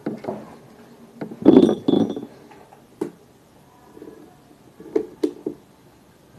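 Small hard objects clinking and knocking as they are handled. The loudest clatter is about a second and a half in, followed by a few separate sharp taps.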